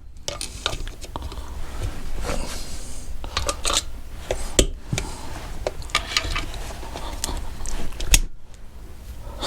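Hand tools working at metal motorcycle gearbox parts: long-nose pliers and small steel parts clinking, clicking and scraping in an irregular string, with a sharper knock about halfway through and another near the end, as a stuck part is worked at.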